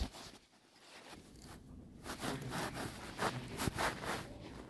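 Scratchy rubbing and scraping noise from the recording phone being handled close to its microphone as it is repositioned. It starts after a brief quiet moment and comes as a run of short strokes.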